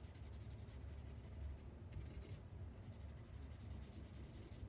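Faint scratchy rubbing of a paper blending stump worked in quick short strokes on drawing paper, smudging soft graphite into a shadow. There is a brief pause about two seconds in.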